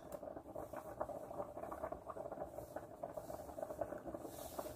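Faint, irregular crinkling and rustling of a plastic baggie being squeezed by hand to pipe cheese filling into a manicotti shell.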